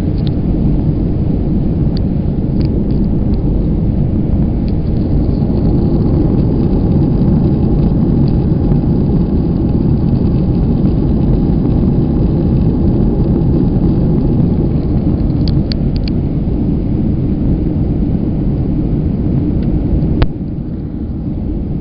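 Steady loud rumble of an airliner cabin in flight, with a few faint clicks over it. The rumble drops away sharply near the end.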